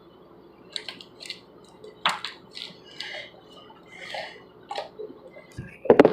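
Slime being squeezed and worked by hand: a run of short wet squelches and clicks, with a louder thump near the end.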